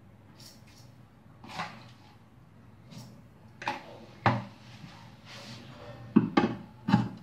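Scattered clinks and knocks of kitchenware as a spoon scoops soaked rice and dal from a plastic bowl into a stainless steel mixer-grinder jar. There is a sharp knock about four seconds in, and a cluster of louder knocks near the end as the steel jar is set onto the grinder's base.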